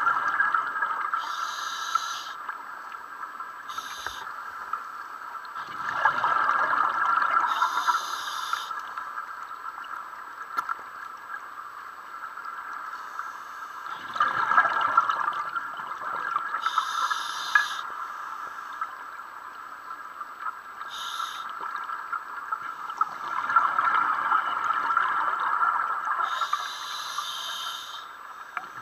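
Scuba regulator breathing heard underwater: slow breath cycles about every eight seconds, each a long rush of exhaled bubbles with short hissing inhalations through the regulator between them.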